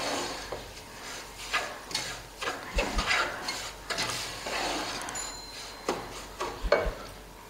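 Wooden spatula stirring and scraping semolina and ground coconut around a nonstick pot in repeated, uneven strokes while the mixture is roasted in ghee until it changes colour. A few dull knocks come in the middle and near the end.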